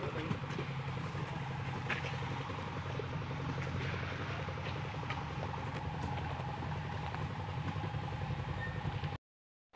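Engine running steadily with light, scattered clatter; the sound cuts out abruptly just before the end.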